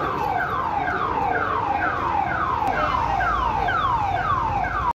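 Electronic alarm sounding: a tone sweeping down from high to low, repeating about twice a second.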